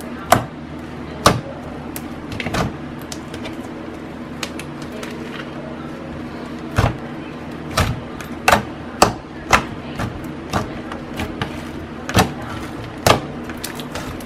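Hands squishing and kneading a borax-activated clear-glue slime that has gone foggy white. It makes irregular wet clicks and pops, coming several a second in the second half, over a steady low background hum.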